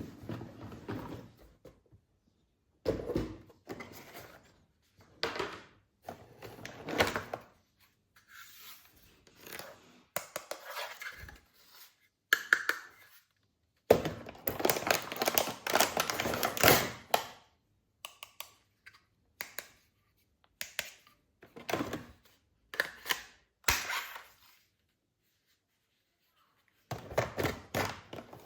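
Plastic toy guns and their packaging being handled during an unboxing: thunks, clicks and rustling in short bursts with fully silent gaps between them. The longest, loudest stretch of handling comes about halfway through.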